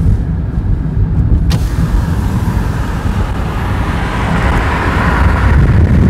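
Moving car heard from the cabin: a steady low rumble of engine and tyres on the road. A brief knock comes about a second and a half in, after which wind rushing over the microphone grows louder toward the end.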